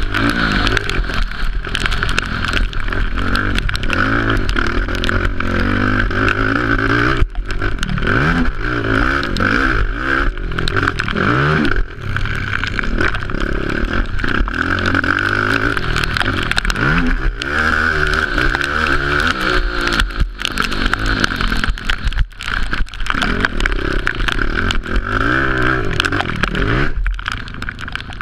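Racing quad ATV's engine revving up and down over and over as it is ridden hard around a dirt motocross track, heard through a helmet-mounted GoPro Hero 3, with sharp knocks here and there.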